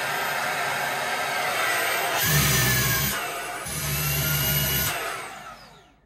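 TROUVER Power 11 cordless handheld vacuum's brushless high-speed motor running at its highest suction stage, full power, with a steady high whine. Twice in the middle its pitch dips and a deeper rumble comes in. Near the end it winds down with a falling whine and fades out.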